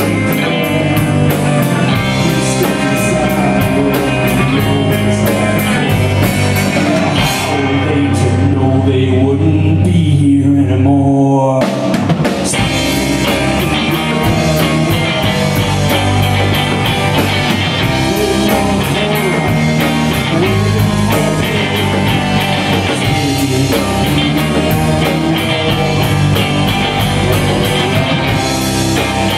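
Live rock band playing: two electric guitars, electric bass and drum kit, with a sung lead vocal. About a third of the way in, the cymbals drop out for a few seconds while a low note is held and a line slides downward, then the full band comes crashing back in.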